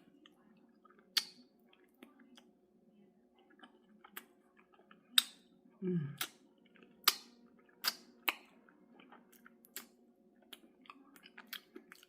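Close-up eating of chicken feet: wet chewing and sucking with sharp smacking clicks, the loudest coming in the middle, and a brief low vocal hum about six seconds in.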